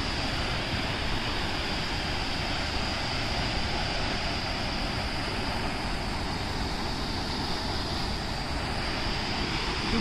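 Tall waterfall plunging into a deep pool, its falling water making a steady rushing noise.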